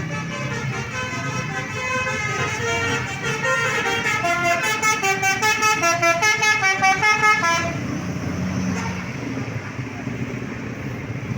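Telolet horn, the multi-note musical horn of an Indonesian bus, playing a quick tune of short stepping notes that grows louder and pulses, then cuts off suddenly about eight seconds in. Street traffic noise continues after it.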